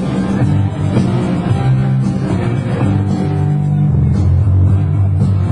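A rock band playing live and loud: electric guitar and bass holding heavy low notes over drums.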